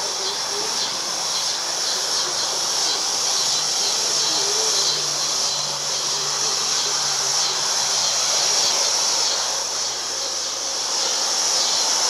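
Evening outdoor city ambience: a steady, faintly pulsing high-pitched insect chirring over a low hum of distant traffic.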